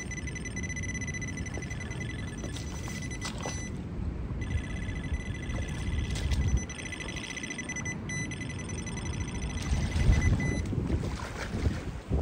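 Wind rumbling on the microphone, with a steady high-pitched whine that cuts out a few seconds in, returns about a second later and stops again near the end.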